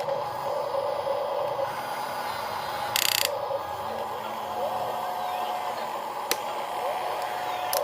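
Small electric gear motors of a radio-controlled toy excavator or dump truck whirring steadily, with a short harsh rasp about three seconds in and a sharp click later on.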